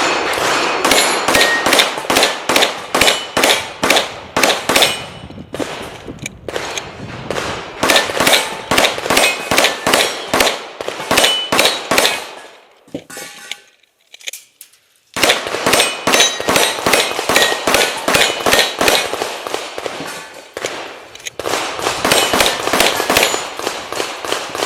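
Rapid 9mm Glock pistol fire, shot after shot, with the ring of steel plate targets being hit. It comes in two long strings separated by a pause of about two seconds.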